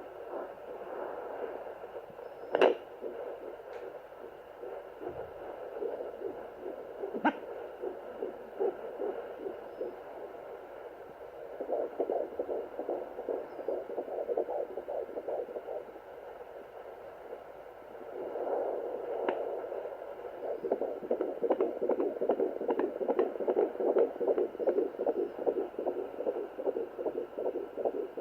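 Sonoline handheld fetal Doppler picking up a fetal heartbeat at 14 weeks: a rapid, pulsing whoosh, weak at first and strong from about halfway on. Two sharp clicks, about three and seven seconds in.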